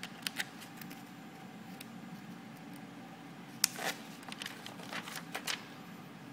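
Scattered small clicks and rustles of gloved hands and metal forceps handling a preserved cat specimen, over a steady room hum; the sharpest click comes a little past halfway.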